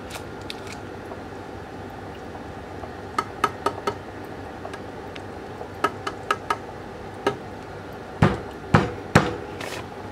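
Fingertip tapping on the glass wall of a small aquarium: two quick runs of four sharp taps, a single tap, then three heavier knocks near the end, over a steady background hum.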